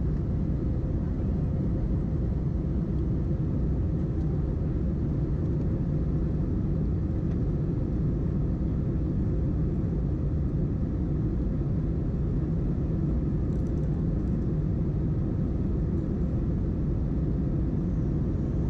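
Steady low rumble of an Airbus A321's jet engines and rushing airflow, heard inside the passenger cabin in flight, with a faint steady hum.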